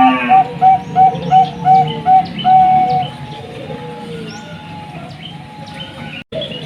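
Zebra dove (Bangkok perkutut) singing: a rapid run of short, evenly spaced coos, about three a second, ending in a longer drawn-out note about three seconds in. Softer coos and small birds' chirps follow, with a brief cut near the end.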